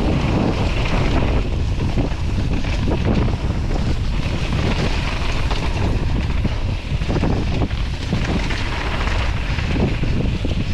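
Wind buffeting the microphone at riding speed over the rumble of mountain bike tyres on a dry dirt trail, with scattered knocks and rattles from bumps along the way.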